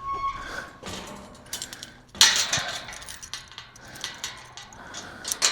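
Clattering and knocking of hard objects being handled, with a loud scraping rattle about two seconds in and a few sharp clicks near the end.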